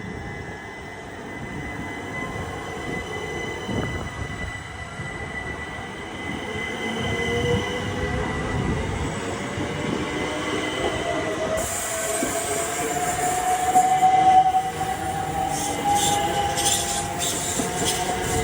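A train running past, with a high steady wheel squeal and a whine that slowly rises in pitch. The sound builds to its loudest about fourteen seconds in.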